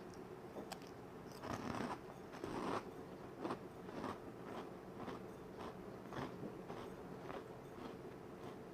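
A person biting and chewing crunchy food: two louder crunching bites in the first three seconds, then steady crunching chews about twice a second.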